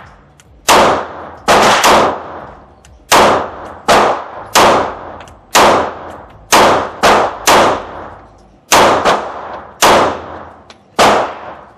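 A string of 9mm pistol shots from a Canik TTI Combat fired slowly at a target, about a dozen sharp reports spaced unevenly, some in quick pairs, each with a short ringing tail.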